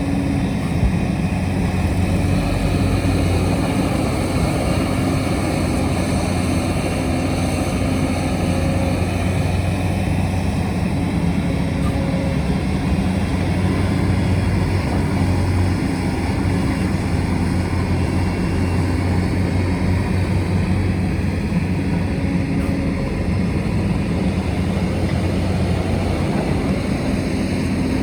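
Diesel engine of a digging machine running steadily at work, a constant low drone.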